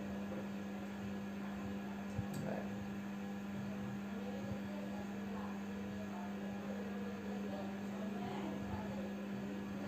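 A steady low hum with faint background noise and one small click about two seconds in.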